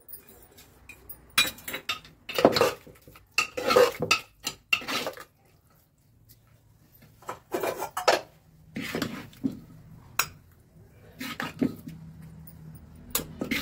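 Steel spoon scraping and clinking against the inside of an aluminium pressure cooker as thick carrot halwa is stirred, in irregular bursts with a short pause about halfway through.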